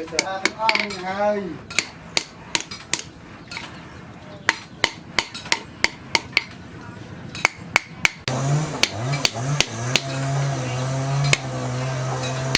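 Hand hammer striking hot steel on an anvil, a steady series of sharp ringing blows, two to three a second. About eight seconds in, a cow starts mooing, a long low call held over the hammering.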